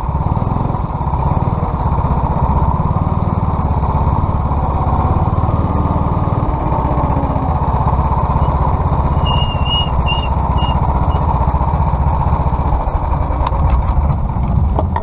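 Go-kart engine running at low revs right behind the seat, a steady low rumble as the kart rolls slowly through the pits.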